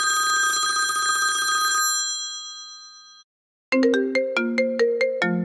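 iPhone iOS 17.4 ringtones playing one after another. A held chime tone rings out and fades over about a second and a half. After a short gap, a new ringtone starts with quick separate notes, about four a second, in a repeating melody.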